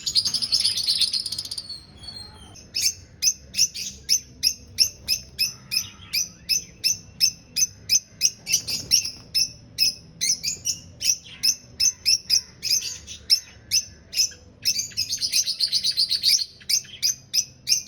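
Lovebirds chirping: a burst of dense chattering, then sharp high chirps repeated about two to three times a second, with another stretch of chattering near the end.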